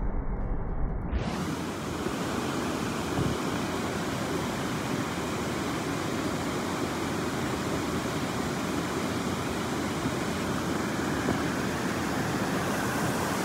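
Steady rush of creek water flowing over a rock slide into a pool. It starts about a second in, after a duller, muffled water sound.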